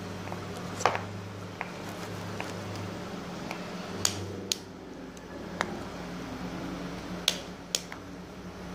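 Scattered sharp clicks and taps from handling small objects, about seven in all, over a steady low hum.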